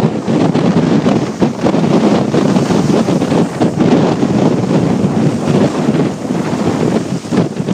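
Gale-force wind buffeting the microphone in uneven gusts, over storm waves breaking against the rock shelf and pier and washing across the rocks as foam.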